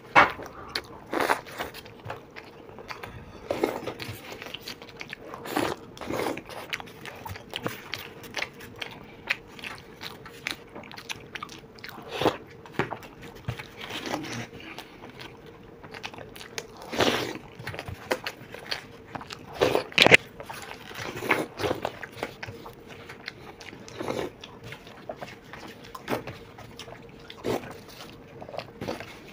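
Close-miked eating of dahi bhalla: irregular wet chewing and biting, with crunching from the sev topping. Metal spoons clink and scrape against paper plates as bites are scooped up.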